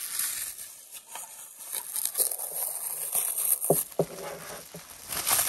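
Plastic bubble wrap crinkling and rustling as it is handled and pulled off a wrapped alarm clock. The crackles come irregularly, with a couple of sharper ones a little under four seconds in.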